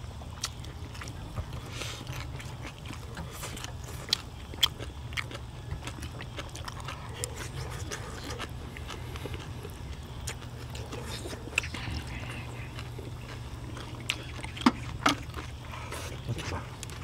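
Close-up eating sounds: chewing and mouth noises, with scattered sharp clicks of chopsticks on dishes and a few louder ones near the end. A steady low hum runs underneath.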